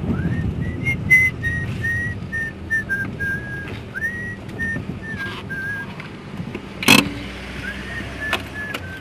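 A person whistling a slow tune in held, stepping notes over the low rumble of a car engine. The whistling pauses about six seconds in, a single sharp knock sounds, and then a few more whistled notes follow.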